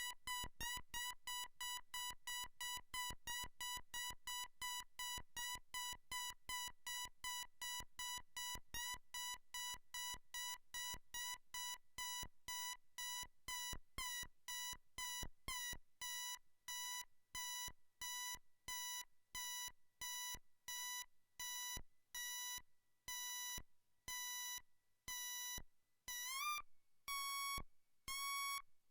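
Behringer Neutron analog synthesizer sounding a repeating beep: a bright tone rich in overtones, each pulse starting with a click. The pulses come about three a second at first and slow steadily to about one a second, and near the end the pitch slides upward.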